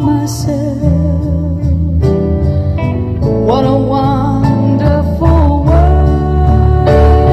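Background music: a slow tune with a wavering, gliding melody line over a steady bass.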